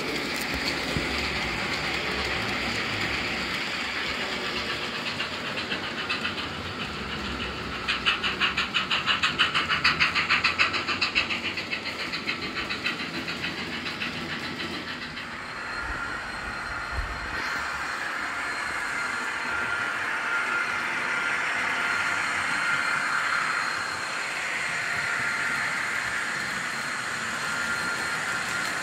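Model trains running on layout track: a steady rolling rumble of small wheels on rails, with a fast rattle of clicks over rail joints or points about eight to eleven seconds in. From about fifteen seconds in, a thin steady whine sits over the rolling noise.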